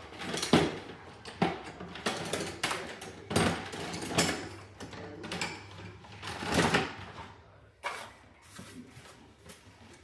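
Irregular clicks, knocks and scrapes of hands handling and fitting a thermostat and its parts, loudest just after the start and again about two-thirds of the way through.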